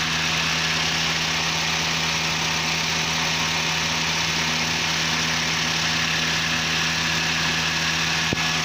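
Toyota Avanza/Xenia engine idling steadily with the air-conditioning compressor running, its newly fitted magnetic clutch engaged and turning the compressor. A single light click near the end.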